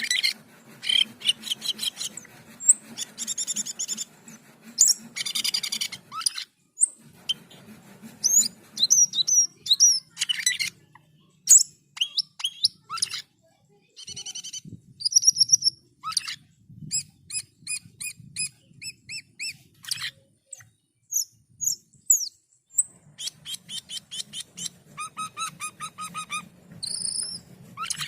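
A cucak keling (jalak keling) singing persistently: a fast, varied run of sharp chirps, clear whistles and buzzy trills with short pauses between phrases, over a low hum that drops out now and then.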